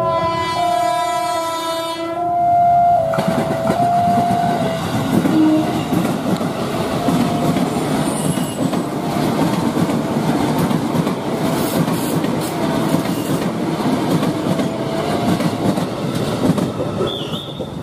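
Electric commuter train sounding its horn for about three seconds, then running past close by with steady wheel and rail noise. The level crossing's warning alarm keeps sounding faintly underneath.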